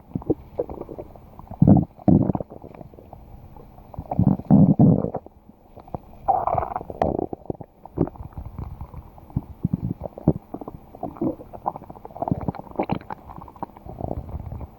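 Stomach growling and gurgling in irregular bursts. There are low rumbles, the loudest about four to five seconds in, a higher squealing gurgle about halfway through, and then a run of short gurgles.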